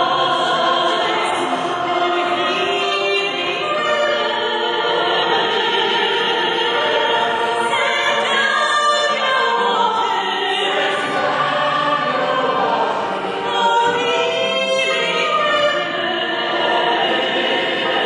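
A choir singing, many voices together in continuous choral music.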